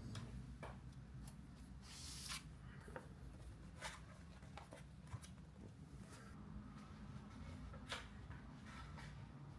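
Quiet handling sounds of small objects: scattered light clicks and taps, with a brief rustle about two seconds in and a sharper click near the end.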